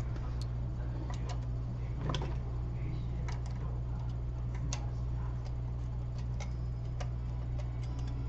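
Irregular light clicks and taps of small tools and iPhone 6 parts being handled at a repair bench, the loudest about two seconds in, over a steady low electrical hum.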